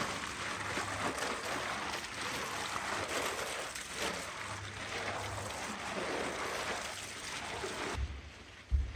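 Steady rushing of water, a dense even hiss, which cuts off abruptly near the end and is followed by a short low thump.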